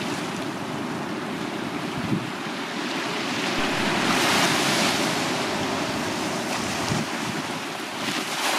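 Small waves breaking and washing up a sandy beach, with a louder wash about halfway through and another near the end.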